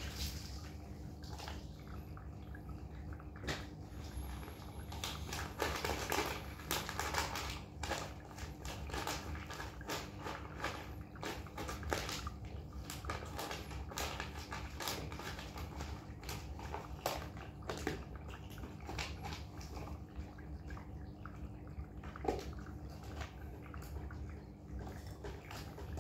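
Cats eating from food bowls: irregular small clicks and chewing sounds over a steady low hum.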